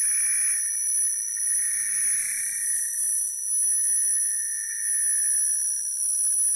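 Electronic sound art played live from laptops: several steady high-pitched tones held together, with a brief noisy swell at the start and another about two seconds in.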